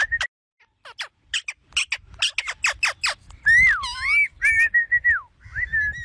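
Indian ringneck parakeet calling: a quick run of short, sharp chirps, about four a second, then whistled notes in the second half, first one wavering up and down, then level held whistles about a second long.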